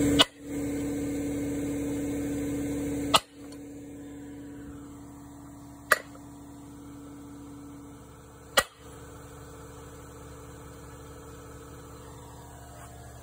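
Four sharp single knocks about three seconds apart over a steady mechanical hum; the hum drops in level after each of the first two knocks.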